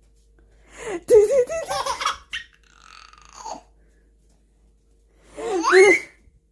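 A 3-to-4-month-old baby laughing: a long laugh about a second in, a softer sound around three seconds in, and another laugh with a sharply rising pitch near the end.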